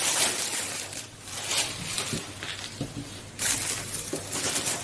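Wrapping paper rustling and crinkling in irregular bursts as it is folded over the contents of a gift box.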